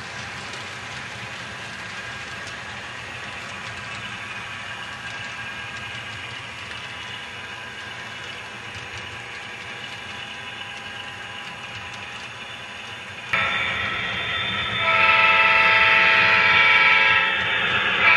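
Model freight train rolling past with a steady running rumble. About 13 seconds in a diesel locomotive horn starts suddenly and sounds loudly in long blasts.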